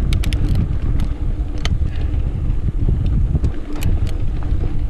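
Wind buffeting the rider-mounted camera microphone over the rumble of a mountain bike rolling on a dirt singletrack, with scattered sharp clicks and rattles from the bike.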